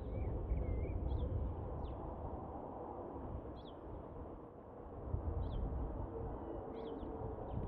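Wind rumbling on the microphone, with a bird giving short, high calls that drop in pitch every second or two.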